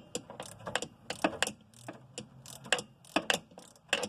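Wrench working the nut off a Corvette's front sway bar end link: irregular sharp metallic clicks and clinks, a few a second.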